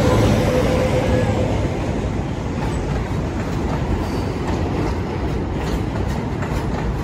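A train of new R211A subway cars being towed past on elevated track, steel wheels rolling with a steady rumble and clacking over rail joints. The towing work locomotive's engine hum fades out about a second and a half in.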